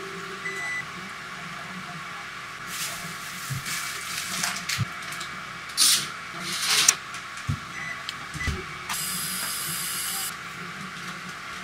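Kitchen handling noises over a steady hiss: several brief rustling bursts, the loudest near the middle, a few light knocks, and a second-long patch of steady rushing noise near the end.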